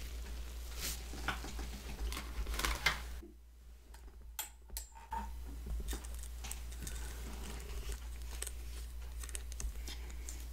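Small objects being rummaged through and handled off-camera while a pacifier is fetched: scattered light clicks, knocks and rustles, with a quieter stretch a few seconds in.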